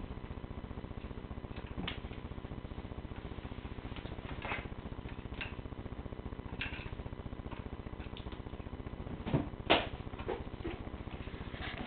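A kitten tugging at a string knotted round a wooden chair leg: scattered light taps and scrapes against the wooden chair and floor, with two louder knocks close together near the end, over a steady low hum.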